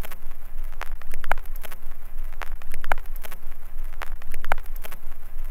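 Old-film soundtrack crackle: a steady hiss with irregular pops and clicks over a low hum.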